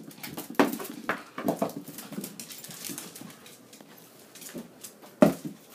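A dog scrambling after small bouncing balls on a laminate floor: scattered taps and clicks of claws and balls, with one sharp knock a little after five seconds in.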